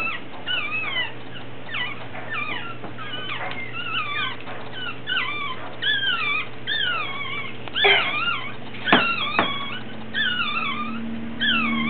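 Day-old chihuahua puppies crying in repeated high squeals, each a short wavering call that falls in pitch, about one or two a second. A few sharp knocks come in the second half.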